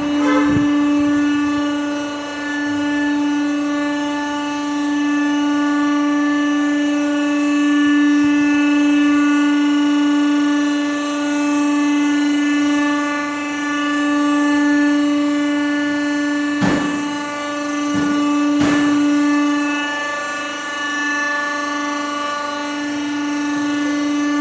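Polyurethane mould machine running with a steady, high-pitched motor hum, broken by three sharp clicks about two-thirds of the way through.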